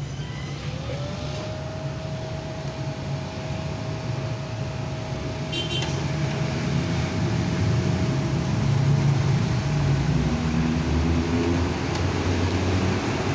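Daiden MMA-120 inverter welding machine powered on, its cooling fan spinning up with a hum that rises in pitch in the first second and then holds one steady tone, over a low steady rumble. About six seconds in, a short click as a welding cable plug is pushed into the machine's socket.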